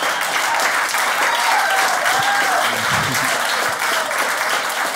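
Comedy club audience applauding, a dense steady patter of many hands clapping.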